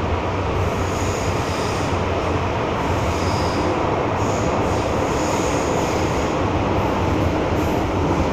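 MTR M-Train (Metro-Cammell electric multiple unit) running through the tunnel, heard from inside the passenger car: a steady rumble of wheels on rail, with a faint high-pitched squeal coming and going a few times.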